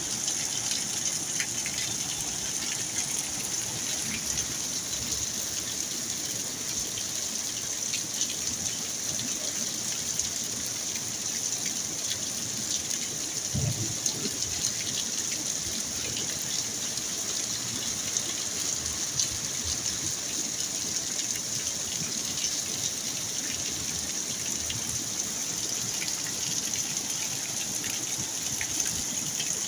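Rainstorm: rain falling steadily with water gushing and splashing. There is a brief low thump about 14 seconds in.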